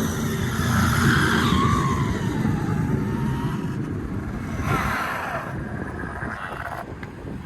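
1/7-scale RC car's electric motor and drivetrain whining as it speeds up and slows, over tyre noise on the ground; a falling whine about five seconds in, then the sound fades near the end.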